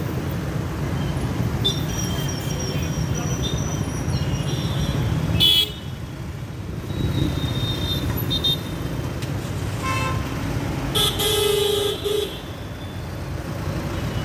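Busy street traffic: a steady rumble of engines and tyres with vehicle horns honking, a long high horn a couple of seconds in and a loud horn blast about eleven seconds in. A sharp knock sounds about five and a half seconds in.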